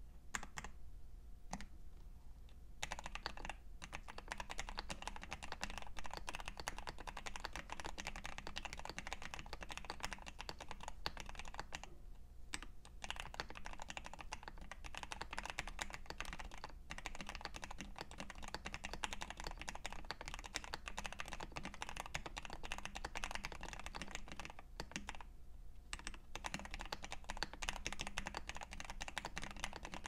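Mechanical keyboard being typed on: an Ikki68 Aurora X with Gateron CJ linear switches lubed with 205g0, a POM plate, a brass weight and ePBT Grand Tour PBT keycaps. A few single keystrokes come first, then fast continuous typing, with brief pauses about twelve and twenty-five seconds in.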